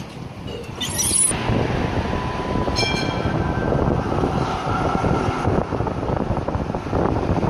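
Melbourne trams running on the track at a stop, with a steady low rumble of wheels and motors. A brief high-pitched screech comes about a second in, and a short ringing tone comes just before three seconds in.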